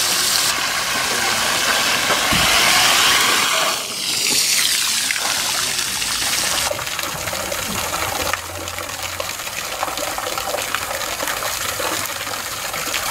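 Water gushing from a spray nozzle and splashing into a shallow pool, a steady rushing hiss whose level shifts abruptly a few times.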